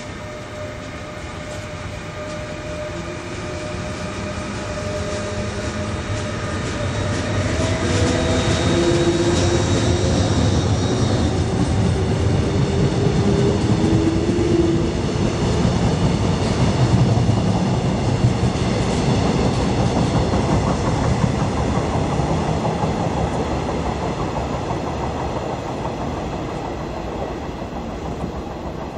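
Electric passenger train running through on the track: a rumble that builds to its loudest about halfway through and then slowly fades, with whining tones that slide in pitch as it comes closest.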